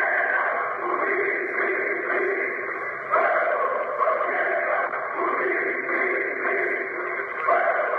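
A large crowd cheering and chanting, on an old narrow-band recording that sounds muffled and radio-like. The din swells and falls every second or two.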